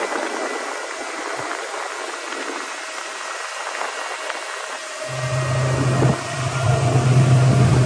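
Wind and water rushing past a boat under way. About five seconds in, the steady low drone of the Suzuki 115-horsepower outboard comes up loud, dipping briefly about a second later.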